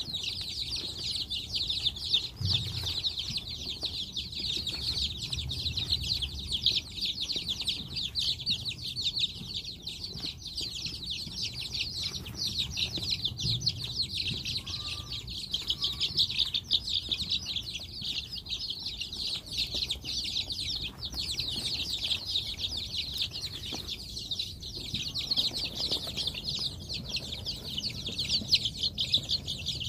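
A brood of chicks peeping constantly, many overlapping high cheeps making one unbroken chorus.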